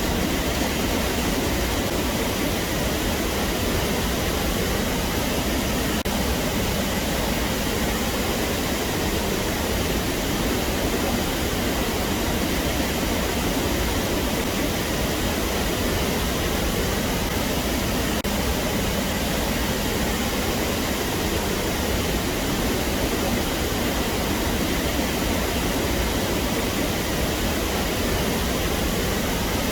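Mountain valley stream rushing, a steady even noise of running water.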